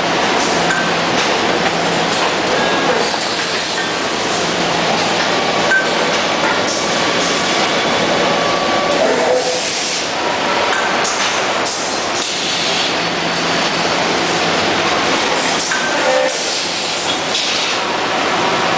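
Steady din of machinery running on a CRT television production line, with scattered metallic clinks and clatter.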